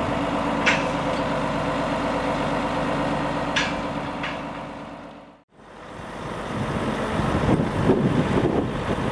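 A crane truck's diesel engine idling steadily, with a few sharp clinks from the lifting chains and hook. About halfway through it fades out and back in, now with wind buffeting the microphone.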